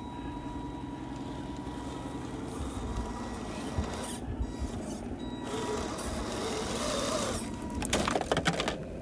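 Electric motors and drivetrains of 1/10 scale RC rock crawlers whining and grinding as they climb a rocky gravel pile. Near the end comes a quick clatter of knocks as one truck rolls over onto its side on the stones.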